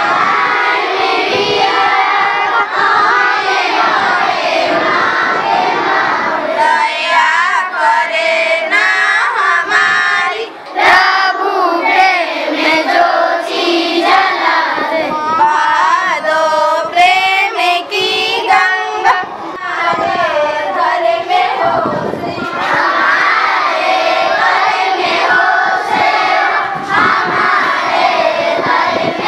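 A large group of schoolchildren singing a prayer together, many young voices at once, with a short pause between lines about ten seconds in.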